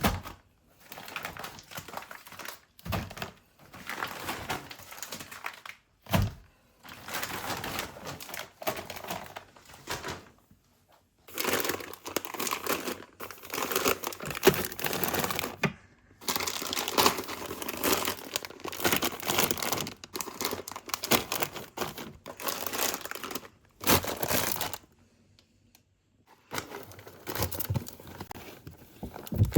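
Plastic bags and food packaging crinkling and rustling as groceries are handled and put away, with a few low thuds of items set down. The sounds come in short stretches that start and stop abruptly.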